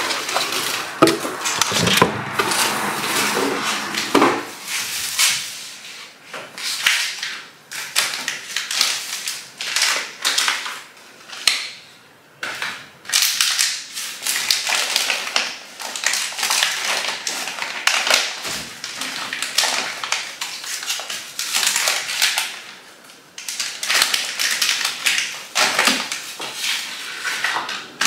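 Irregular rustling and crinkling of cardboard and plastic food packets, with small knocks and clatters as groceries are lifted out of a cardboard delivery box and stacked on kitchen cupboard shelves.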